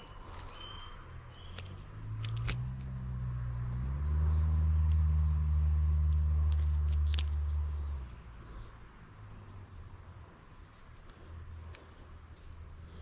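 A steady high-pitched chorus of crickets and other insects. From about two seconds in, a louder low droning hum rises in steps, holds steady and cuts off abruptly about eight seconds in, with a few faint clicks.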